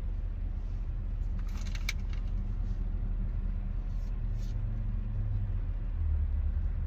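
Low, steady rumble of road traffic that grows louder near the end, with a couple of brief rustles at about two and four seconds.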